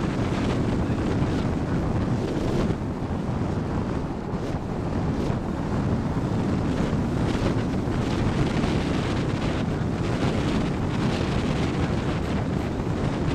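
Wind rushing over the microphone of a camera mounted on a hang glider's wing in flight: a steady, loud rush of airflow with brief gusts, easing slightly about three seconds in.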